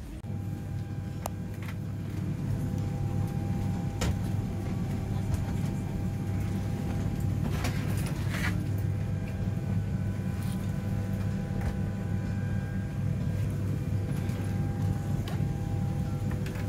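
Airliner cabin ambience: the steady low hum of the aircraft's air system, with a faint steady whine above it and a few scattered clicks and knocks.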